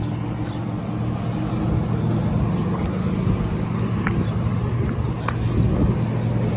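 Heavy truck's diesel engine idling with a steady low hum.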